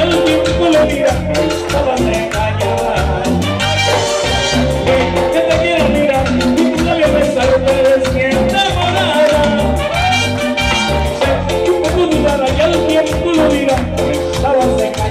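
Latin dance music in a salsa style, playing loud and continuously with a steady beat.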